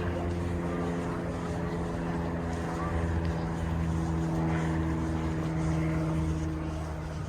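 A steady engine or motor drone that holds one unchanging pitch, over a low rumble.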